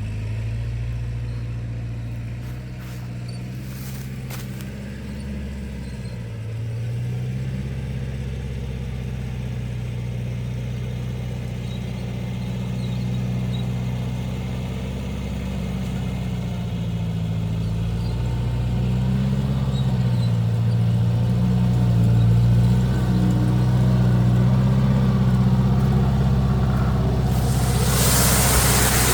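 A motor engine running steadily, its pitch drifting up and down as the engine speed changes. A loud hiss joins near the end.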